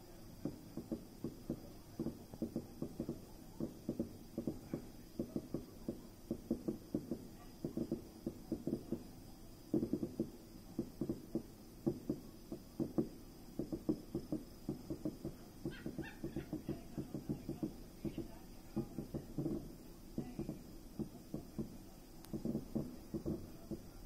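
Distant fireworks popping and crackling in a rapid, irregular string of dull bangs, several a second, with a short higher crackle partway through.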